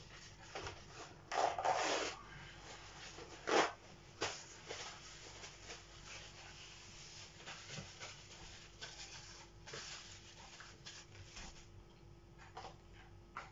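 Intermittent rustling and short scraping sounds. The loudest come about one and a half and three and a half seconds in, over a faint steady hum.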